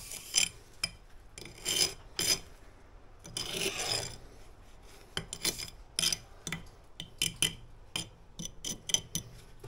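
Steel brick jointing tool scraping along wet mortar joints in face brickwork, tooling the joints neat. It goes in short, irregular strokes, with a couple of longer rubs in the first half and quicker, denser strokes in the second half.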